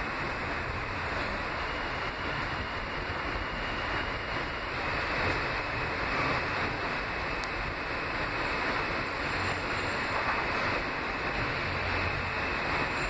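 Kawasaki R160B subway car running through a tunnel, heard from inside the car: a steady rush of wheel, rail and tunnel noise.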